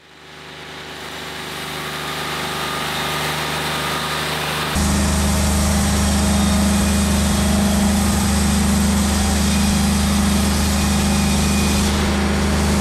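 Wood-Mizer LT40 Wide hydraulic band sawmill running with its band blade sawing through a dense, long-seasoned red oak log. The engine and blade sound fades up over the first few seconds, then jumps louder about five seconds in and holds steady.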